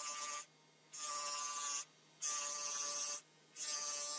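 A spinning abrasive wheel grinding a metal watch case pressed against it, in repeated passes of about a second each with brief pauses between them, during which only a low motor hum remains.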